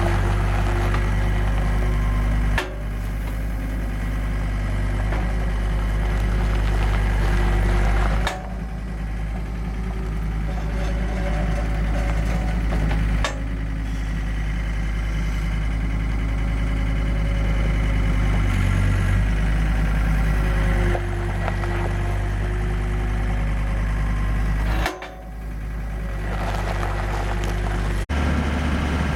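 John Deere 325 skid steer's diesel engine running steadily as it works a hydraulic bale slicer, its sound changing abruptly several times.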